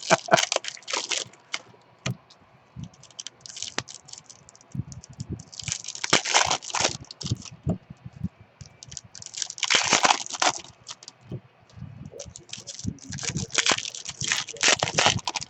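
Trading-card packs and cards being handled: several short bursts of crinkling and rustling with scattered clicks.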